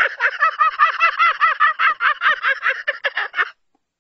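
A man's loud, rapid cackling laugh, a fast string of about seven 'ha' syllables a second, each rising and falling in pitch, that stops abruptly about three and a half seconds in.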